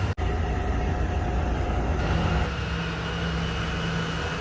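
Steady low rumble of heavy diesel machinery running. The sound cuts out for an instant just after the start, then changes about two and a half seconds in, where a steady low hum comes up.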